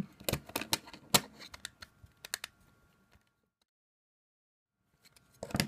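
Sharp clicks and taps of small plastic bolts and the stacked plastic layers of a PiBow Raspberry Pi case being handled as the bolts are pushed up through it from underneath. About three seconds in the sound cuts to dead silence for nearly two seconds, then the handling clicks start again near the end.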